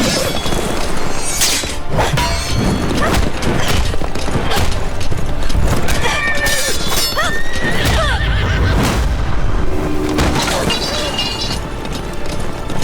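Battle soundtrack: a music score under horses neighing, with sharp crashes and impacts at several points.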